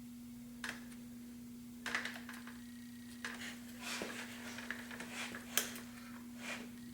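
Scattered light clicks and clinks of small metal parts being handled on the bench during camshaft assembly on a V12 cylinder head, over a steady low hum. The sharpest click comes near the end.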